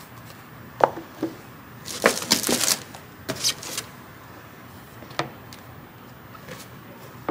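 Paperback books being handled and set down one at a time on a wooden tabletop: a handful of separate soft taps and brushing slides, with a short cluster of them about two seconds in.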